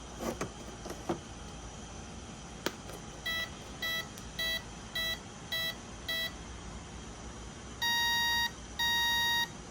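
Traxxas M41 speed control power-up tones after the battery is plugged in: six short evenly spaced beeps, then two longer beeps near the end, after a few soft handling clicks. These tones show the ESC arming, with the motor connection now working after its oxidised connectors were sanded clean.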